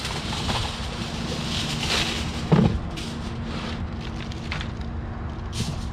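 Aluminium foil being pulled from its box and crinkled as it is wrapped around a foil pan, in irregular crackly rustles with a louder crunch about two and a half seconds in. A steady low rumble runs underneath.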